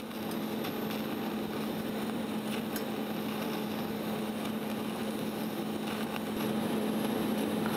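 TIG welding arc burning steadily on cast iron, a constant hum over a hiss, getting slightly louder near the end. The arc is running at low heat to soak heat into the cast iron before any aluminum bronze filler is added, not melting the metal.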